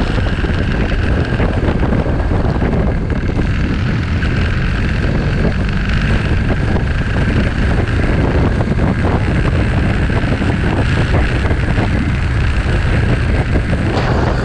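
Motorcycle riding along at road speed: wind rushes steadily over the microphone, mixed with the bike's engine and tyre noise.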